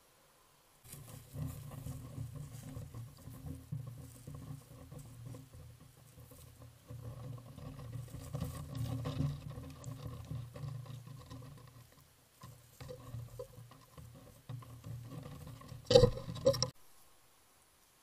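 Raccoons foraging close to a trail camera's microphone: a stretch of rustling and scratching in the grass with scattered small clicks, broken by one loud sharp knock near the end.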